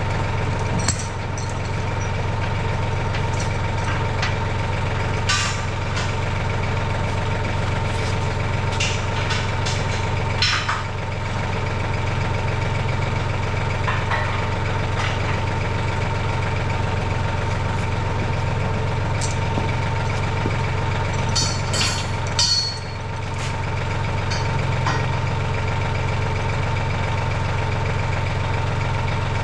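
An engine idling steadily, with a few sharp knocks scattered through it.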